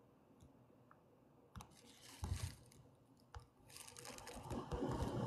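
Quiet: a few faint clicks and a brief soft rustle, then a faint hiss building near the end.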